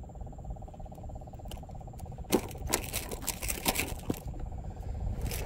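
Quick sharp clicks and rattles for nearly two seconds, starting about two seconds in, and one more near the end: a juvenile tarpon on the ground being handled while the lure's hooks are worked out with fishing pliers. A faint steady pulsing trill runs underneath.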